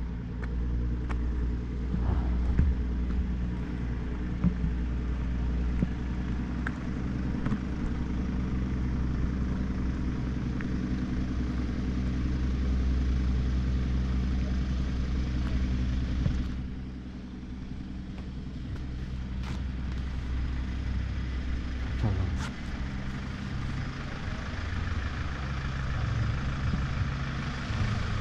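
Low, steady rumble of a motor vehicle engine running.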